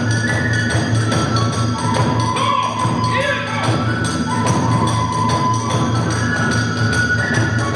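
Kagura hayashi accompaniment: a fast, even beat of drum and small hand cymbals under a sustained, sliding bamboo-flute melody.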